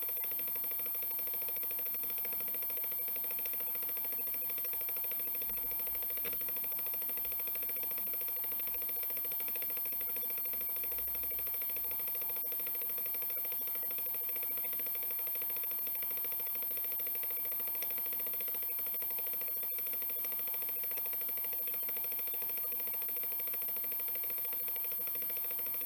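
Hitachi Deskstar 7K80 80 GB IDE hard drive running during a 1 GB file copy: a steady spindle whine with a continuous faint clatter from the heads reading and writing.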